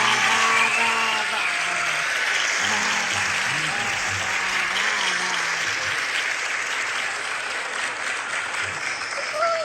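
A crowd applauding: dense, steady clapping that eases off a little toward the end.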